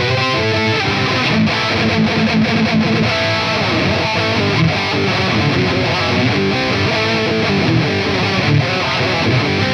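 Distorted electric guitar played through an Electro-Harmonix Intelligent Harmony Machine harmony pedal placed in front of the distortion: the added harmony notes get distorted together with the played notes, so each note comes out like a chord struck all at once. Continuous playing of riffs and single notes.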